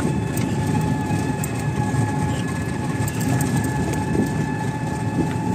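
Ride noise of a moving vehicle on a country road: a steady low rumble and rattle, with a faint steady whine held throughout.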